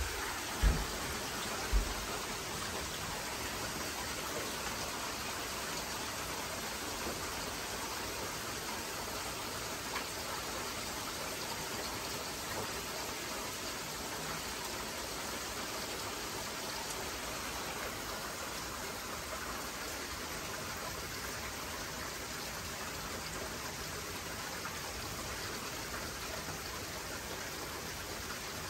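Heavy rain pouring steadily in a severe thunderstorm, a constant even hiss of downpour. Two short low thumps come in the first two seconds.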